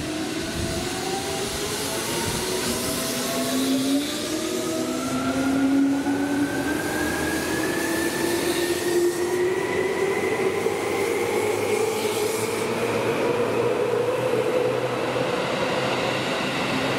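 Electric commuter train pulling away and accelerating: a whine from its traction motors climbs steadily in pitch throughout, over the rumble of the wheels on the rails.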